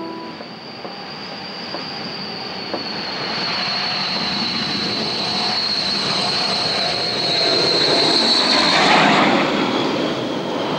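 Rolls-Royce Dart turboprop engines of a Vickers Viscount on landing approach: a high steady whine over a rushing noise, growing louder as the airliner comes over about eight to nine seconds in, the whine dropping in pitch as it passes.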